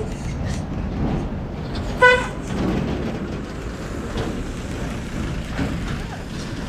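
A single short vehicle horn toot about two seconds in, over steady road traffic noise.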